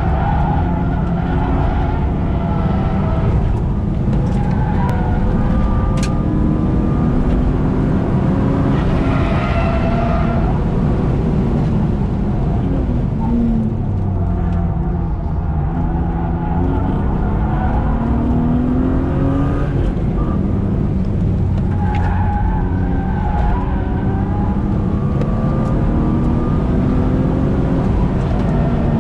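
Car engine heard from inside the cabin while being driven hard on a race circuit, its pitch repeatedly rising as it accelerates and dropping off for braking and gear changes, over a steady rumble of road noise.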